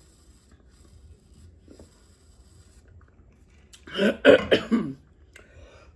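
A woman coughing, a quick run of three or four harsh coughs about four seconds in, from a lemon seed caught in the back of her throat.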